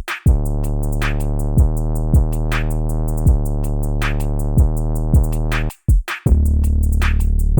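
Trap/phonk beat showcasing a long sustained 808 bass, over rapid hi-hats and sharp snare or clap hits. The beat cuts out briefly about six seconds in, and a new 808 note comes back in.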